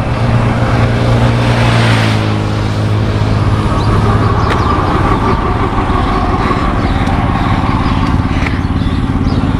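A motor vehicle's engine running close by on a highway: a steady low drone, with a higher whine joining about halfway through.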